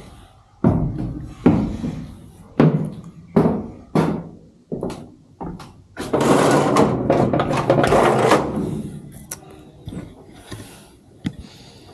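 A series of heavy knocks and thumps, roughly one a second, then a dense rushing noise lasting a couple of seconds from about six seconds in.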